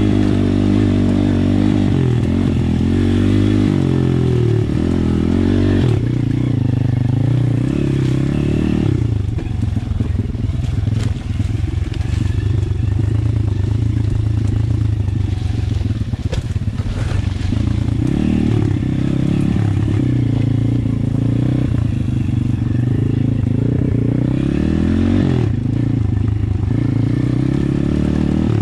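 Apollo RFZ pit bike with a swapped-in 150cc engine running under way on a dirt trail, its pitch rising and falling with the throttle. Around the middle the engine note turns rougher and a little quieter before it picks up again.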